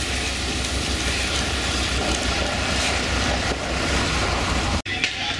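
Fire engine's diesel engine running steadily close by, a deep even rumble. The sound cuts out for an instant near the end.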